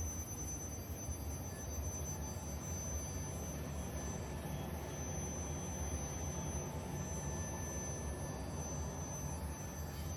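Steady low hum and even noise of factory machinery, with faint steady high-pitched tones over it.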